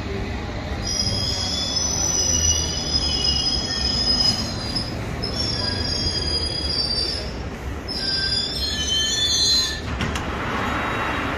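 London Underground S Stock train at the platform squealing in high tones, several at once, in three stretches over a low rumble. A short burst of hiss follows about ten seconds in.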